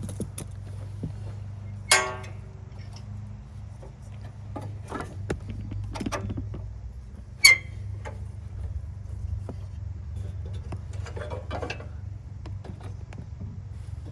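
Metal parts of a lawn mower's pulley and drive clinking and tapping as a larger pulley is fitted, with two sharp ringing metal clanks, about two seconds in and about halfway through, over a steady low hum.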